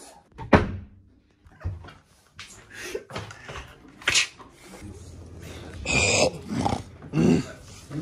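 A sharp bang about half a second in, followed by a few softer knocks, short muffled vocal sounds, and two brief hissy bursts near the end.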